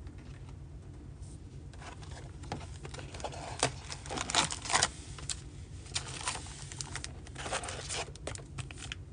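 A cardboard trading-card box being opened and its foil card packs pulled out and set down in stacks: irregular crinkling, scraping and light tapping, busiest about four seconds in, over a steady low hum.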